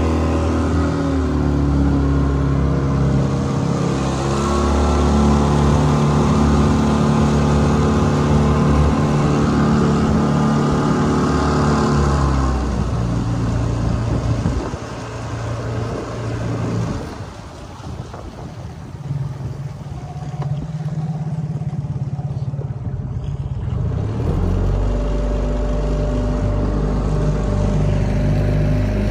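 Evinrude 15 hp outboard motor running a small boat, with broken ice crunching and scraping along the hull during the first dozen seconds. The motor eases back and runs quieter from about halfway through, then picks up again a few seconds before the end.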